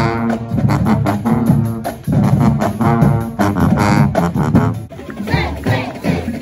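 Marching band playing as it marches, with sousaphones carrying a low brass line under the other horns and sharp, regular drum hits.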